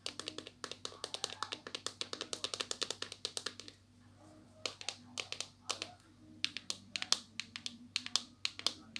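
Rapid tapping on a mystery squishy's packaging, a quick run of sharp taps for about three and a half seconds. After a brief pause the taps come slower and irregular.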